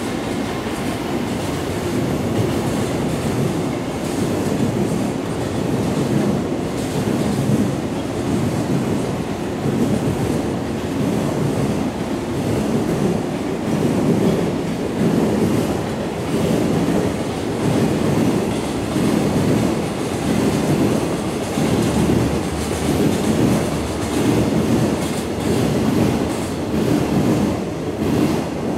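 Container freight wagons rolling through a station at speed, their wheels clacking over the rail joints in a repeated pulsing rhythm under a steady rumble of running gear.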